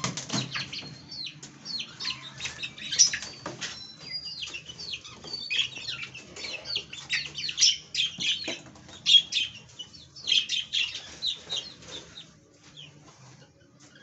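Young Aseel game-fowl chicks peeping and chirping with many short high calls, over wing flapping and scuffling as one is caught and lifted out of a crate. The calls thin out near the end.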